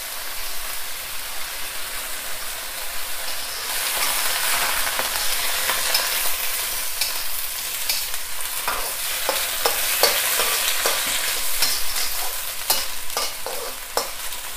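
Pak choi sizzling as it stir-fries in oil and a little water in a wok, with the last of the water boiling off. The sizzle grows louder about four seconds in. From about halfway on, a metal spatula scrapes and clicks against the wok as the greens are tossed.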